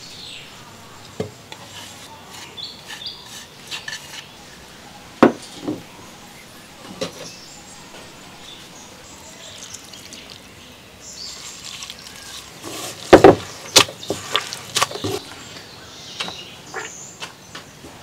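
Hands working grated coconut in an earthenware pot. The coconut is tipped in, a stream of water is poured over it, and clay bowls knock now and then. The loudest moment is a cluster of sharp knocks about thirteen seconds in.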